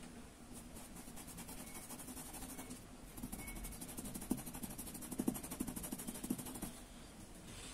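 Faint scratchy brushing of a small paintbrush's bristles dragged over cloth as a leaf's veins are painted, with a few soft ticks of the brush against the fabric in the second half.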